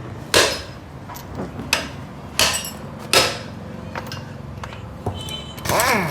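Several loud clanks at uneven intervals, each with a short ringing tail, over a low steady hum; a brief squeal that bends up and down comes near the end.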